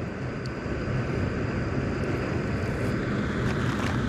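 Steady low rumble with a faint hum in it and no single event standing out, and a few faint ticks near the end.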